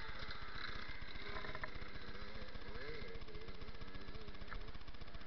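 Dirt bike engine running steadily with an even, rapid pulse, heard close through a helmet camera.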